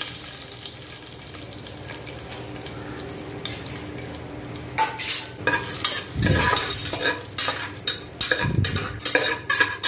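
Mixed nuts frying in ghee in a pressure cooker, a steady sizzle. From about five seconds in, a metal slotted spoon scrapes and clatters against the pot as the nuts are stirred.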